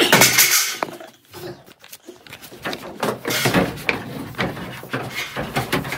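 Irregular scraping and rustling with a few light knocks, as of handling against bare wood framing, loudest in the first second.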